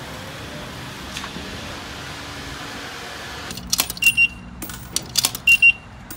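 A pickup truck running steadily as it pulls in. Then coins clink into a self-serve car wash coin box, and the machine gives a quick double beep twice, about four seconds in and again near the end, as it credits the money.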